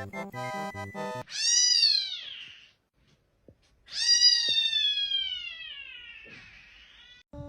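A cat meows twice after a brief stretch of rhythmic music: first a call of about a second that falls in pitch, then, after a short pause, a longer drawn-out meow that slowly slides down in pitch.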